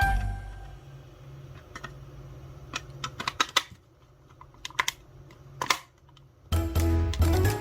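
Sony TCM-6DX cassette recorder's buttons and mechanism clicking as it is worked: a scatter of sharp clicks, some in quick runs, after the music stops. Music starts again near the end.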